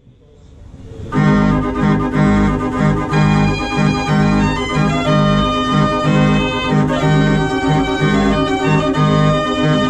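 87-key Gavioli fair organ playing a tune, its pipes sounding over a steady repeating bass beat. The music fades up out of silence over the first second.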